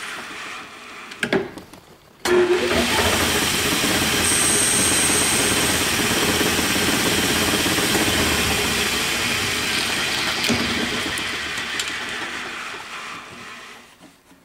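A sharp clack about a second in, then a Hardinge lathe's spindle starts abruptly and runs steadily while turning a plastic part for about ten seconds, before winding down near the end. The spindle brake is faulty, in the operator's words it still needs fixing.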